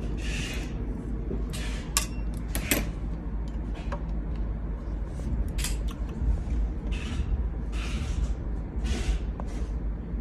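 Hand work on a model road roller: sharp clicks and short scraping rasps, roughly one a second, over a steady low hum.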